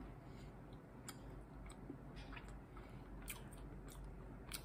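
Faint chewing of a mouthful of homemade scone, with a few small scattered clicks.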